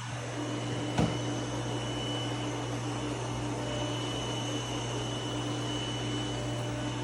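Robot vacuum cleaner running: a steady motor and suction hum with a constant whine, and one sharp click about a second in.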